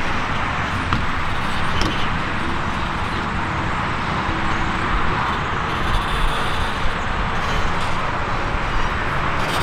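Pickup truck towing a loaded enclosed cargo trailer as it pulls away: a steady rumble of engine and road noise.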